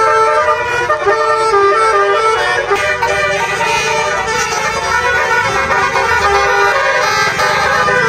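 Basuri telolet multi-tone horn playing a tune: a run of held horn notes stepping from pitch to pitch, several notes a second, without a break.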